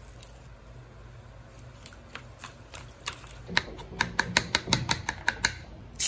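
Kitchen knife chopping garlic on a plastic cutting board: a few scattered taps, then a quick even run of about a dozen chops, roughly six a second, past the middle. Oil starts sizzling loudly at the very end.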